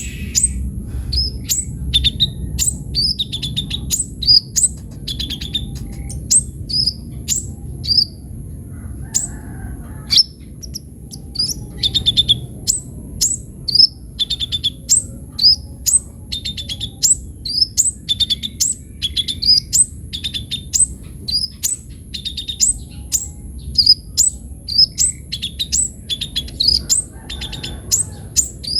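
Kolibri ninja sunbird (Van Hasselt's sunbird) singing busily: a fast string of high, thin, sharply falling notes, several a second, with a brief pause about nine seconds in.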